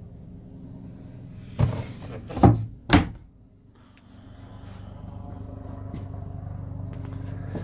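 Wooden engine-compartment cover in a sailboat cabin being set back into place: three hollow knocks within about a second and a half, over a steady low hum.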